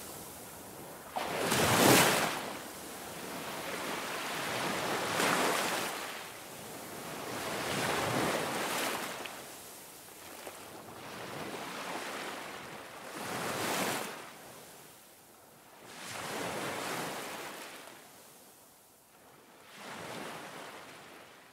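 Ocean waves washing in, a rushing swell that rises and falls about every three to four seconds. The loudest wave comes about two seconds in, and the swells grow fainter toward the end.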